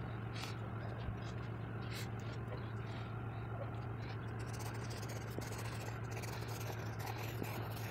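Pencil scratching across paper in short strokes, busiest from about halfway in, over a steady low hum.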